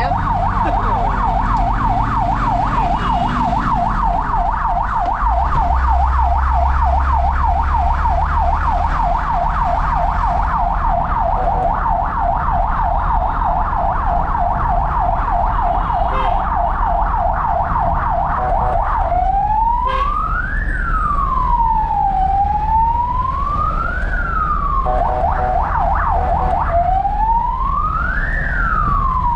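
Fire truck siren heard from inside the cab: a rapid yelp warbling several times a second, switching about two-thirds of the way in to a slow rising and falling wail, with a short burst of yelp between wails. The truck's engine rumbles low underneath.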